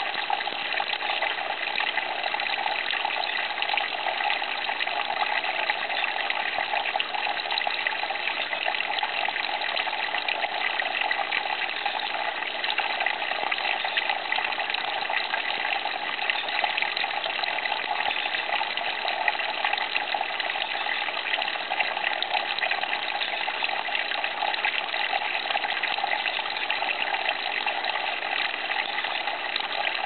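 Water from an aquarium's Buddha-fountain waterfall filter pouring and splashing into the tank, a steady, unchanging rush of water.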